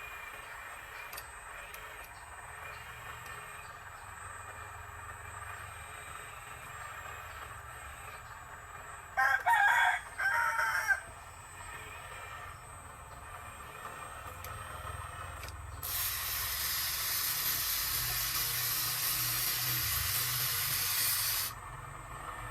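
A rooster crows once, a loud two-part call about nine seconds in, over a low steady hum. Later a steady hiss starts suddenly, runs about five seconds and cuts off abruptly.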